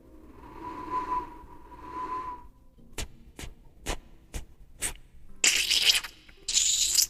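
Beatbox mouth sound effects imitating cocktail making: a held noisy sound with a steady high tone for about two and a half seconds, then five sharp clicks about half a second apart, then two long bursts of hiss.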